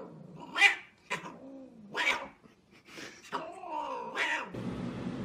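Domestic cat yowling in about five short calls that bend in pitch, the last one longer at about a second. A steady low hum takes over abruptly near the end.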